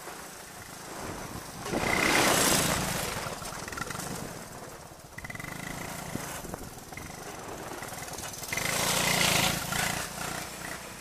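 A Honda ATC185S three-wheeler's single-cylinder four-stroke engine revving and running on a gravel drive. It swells loud twice with a rush of noise as the machine passes close, about two seconds in and again near the end, and runs quieter and farther off in between.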